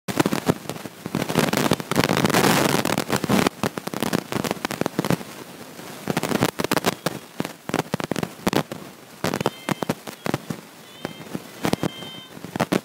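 Crackling and clicking: a dense patter of sharp clicks for the first few seconds, thinning to scattered clicks for the rest.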